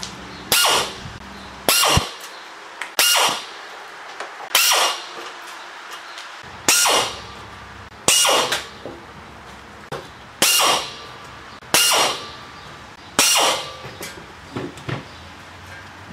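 Pneumatic pistol-grip air drill with a Phillips bit run in nine short bursts, one to two and a half seconds apart, backing out the screws of a welder's sheet-metal case. A few light clinks follow near the end.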